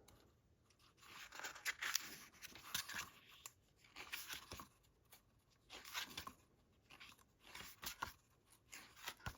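Pages of a hardback book being turned, a soft papery swish every second or so, about six times.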